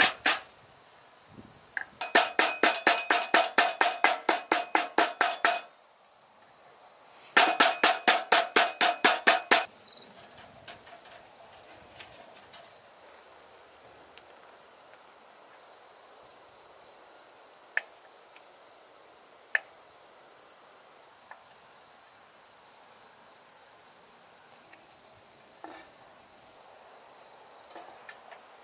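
A kitchen knife chopping rapidly on a wooden cutting board, about five or six chops a second, in two runs of a few seconds each. After that come only a few single taps of the knife, over a steady high chirring of crickets.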